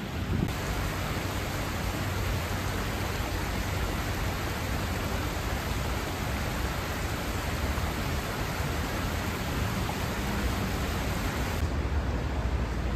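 Steady rushing of a shallow stream spilling over low weirs and stones, with a low rumble beneath. Near the end the sound turns abruptly duller as the upper hiss falls away.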